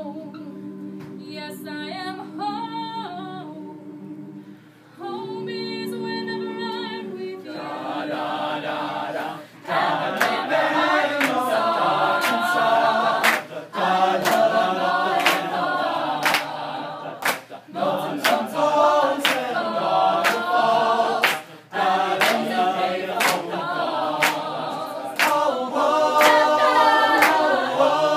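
Mixed-voice a cappella group singing, a female lead over sustained chords from the group. About ten seconds in the full group comes in louder, with hand claps on the beat.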